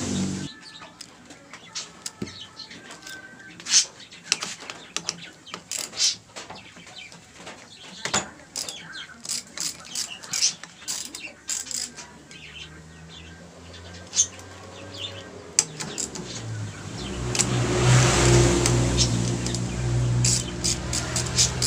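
Scattered clicks and light metallic taps of hand tools working on a motorcycle's front brake master cylinder as the brake lever is taken off. In the last few seconds a motor engine grows louder and then fades, becoming the loudest sound.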